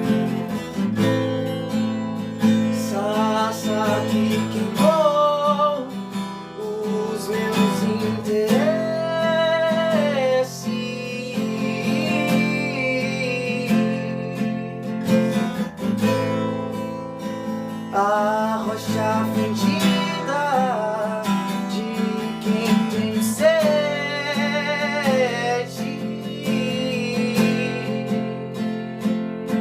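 Acoustic guitar strumming chords, with a wavering melodic line over it in phrases a few seconds long.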